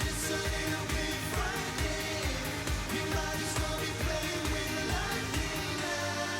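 Live pop song with male group vocals over a steady dance beat of about two kick-drum hits a second. Near the end the drums drop out, leaving held low synth notes.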